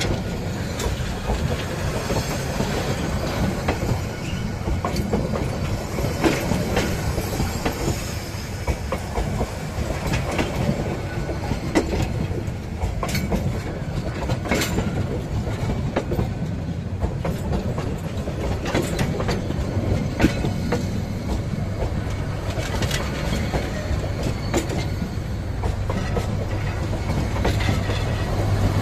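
Steel wheels of passing train coaches rolling on the rail at close range: a steady rumble broken by irregular clickety-clack clicks and knocks from the wheels and bogies. A low steady hum joins near the end.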